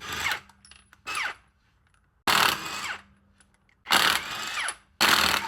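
Impact wrench with a 21 mm socket spinning off wheel lug nuts in five short runs, the motor winding up and down with each trigger pull; the later runs are longer.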